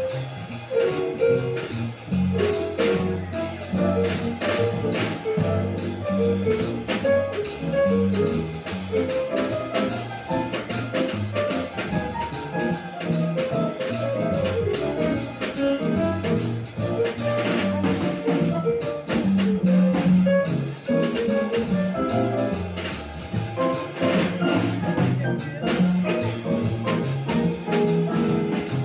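Small jazz combo playing live: a Nord Electro 5 stage keyboard, an upright double bass moving from note to note, and a drum kit with frequent cymbal strokes.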